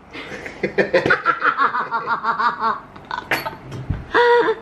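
A person laughing in a quick run of repeated bursts, followed by a sharp click and a short held vocal 'mm' sound near the end.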